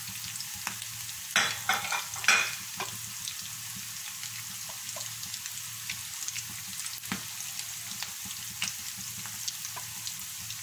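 Potato balls deep-frying in hot oil, a steady sizzle with fine crackling. A wire skimmer clinks and scrapes against the pan a few times about one and a half to two and a half seconds in as the balls are lifted out.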